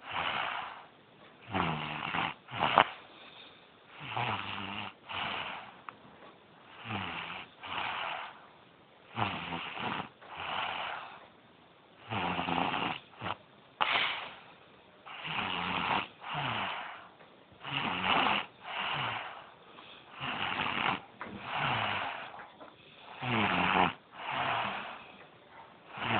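A sleeping person snoring in a steady rhythm: a rasping snore with a low, falling tone on breath after breath, with short quiet gaps between.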